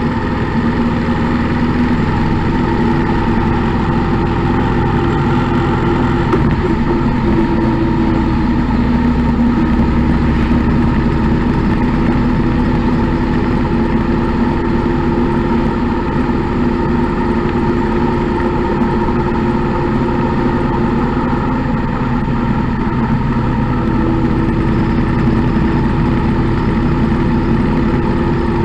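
Motorcycle engine running steadily at cruising speed, heard from the moving bike, its pitch holding nearly level with small shifts, over a low rumble of wind and road noise.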